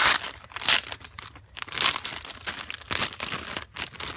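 Clear plastic packaging bag crinkling in irregular bursts as hands handle it, loudest near the start.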